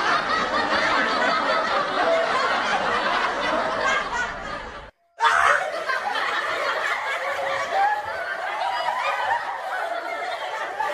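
Continuous laughter from several people, snickering and chuckling, cut off by a brief dropout about five seconds in and then going on.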